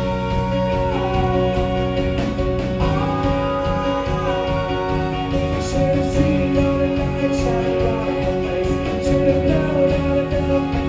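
A band playing live: a male singer holding long notes over keyboard, bass guitar and drums.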